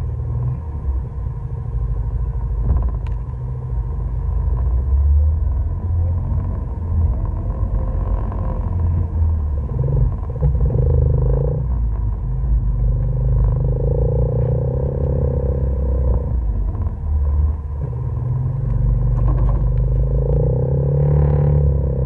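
ATV engine running on a dirt trail ride, its revs rising and falling in stretches of a few seconds as the throttle is opened and eased off.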